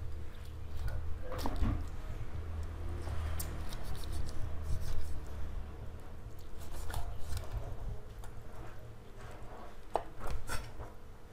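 A cleaver chopping whole frogs, bone and all, on a wooden chopping board: irregular heavy thuds with a few sharper knocks, the loudest near the end.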